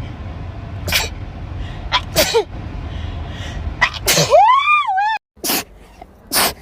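A person sneezing in quick, sharp bursts, about seven in all. One sneeze about four seconds in runs into a short voiced cry that rises and falls in pitch.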